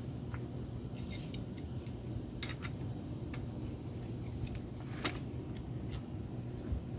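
A few light metallic clicks and clinks, the sharpest about five seconds in, over a steady low hum.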